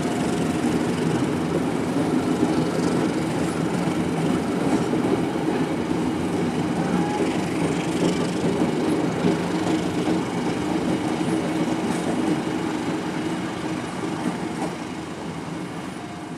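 Departing passenger train pulled by a CC203 diesel-electric locomotive rolling past, a steady low engine drone under the clack of wheels on the rails, growing slightly fainter near the end.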